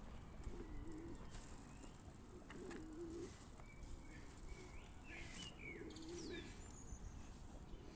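Pigeons cooing softly: three short warbling coos, with a few higher chirps from small birds in the middle.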